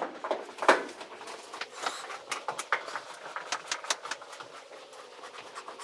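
A screw being backed out of the dryer's sheet-metal cabinet with a Phillips screwdriver: a run of small, irregular clicks and scrapes, several a second.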